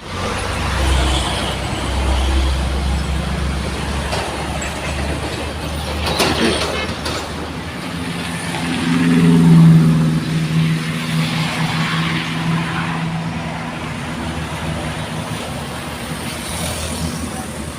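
Big buses running past with a deep engine rumble, then, about eight seconds in, a bus's low ship-style air horn sounds one long held blast lasting several seconds, loudest at its start and fading away.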